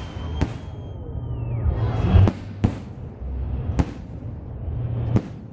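Fireworks salute: aerial shells bursting with about five sharp bangs at irregular intervals over a low rumble. A whistling tone falls in pitch about a second and a half in.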